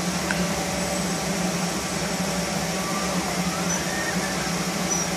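Mechanical bull ride's machinery running with a steady, even drone and a constant low hum as the bull turns slowly.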